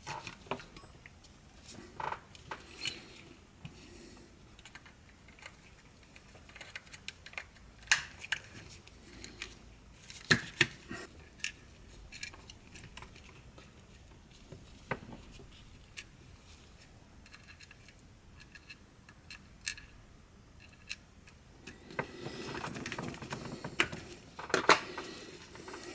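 Scattered clicks and light knocks of plastic headphone earcup parts being handled and fitted together, with a few seconds of denser rubbing and clatter near the end.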